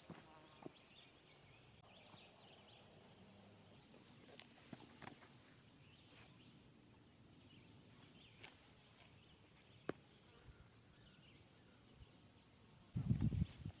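Quiet outdoor ambience with scattered faint clicks; about a second before the end, a burst of low thumps and rustling.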